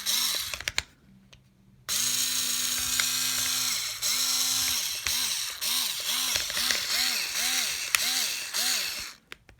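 Hyper Tough 4-volt cordless screwdriver's small electric motor whirring, running free. A brief burst comes first, then after a pause a run of nearly two seconds, then many short runs, each spinning up and winding down, about two a second.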